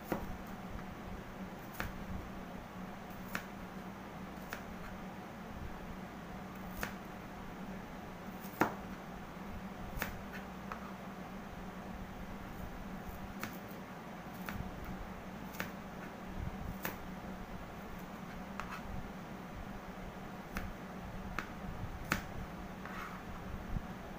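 Kitchen knife chopping garlic cloves on a plastic cutting board: single, irregular sharp taps of the blade on the board, about one every second or two, over a steady low hum.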